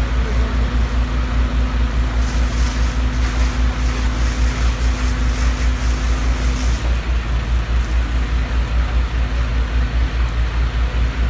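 Fire engine's diesel engine running steadily, a deep rumble with a fast, even throb, while it drives the pumps and aerial ladder. A steady hum runs with it and stops about two-thirds of the way through, and a hiss of water spray comes and goes in the middle.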